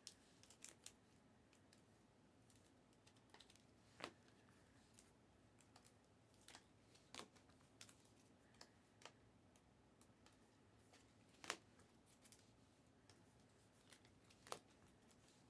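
Near silence with faint, scattered clicks and taps, a few seconds apart and irregular, the sharpest about four, seven, eleven and a half and fourteen and a half seconds in.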